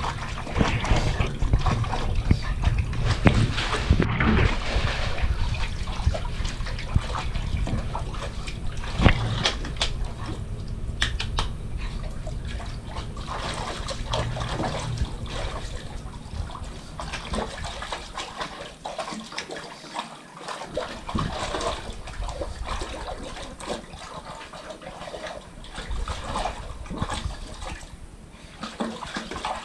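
A pug splashing and pawing in a shallow plastic paddling pool: irregular sloshing and splashes of water, heavier in the first half and lighter in the second.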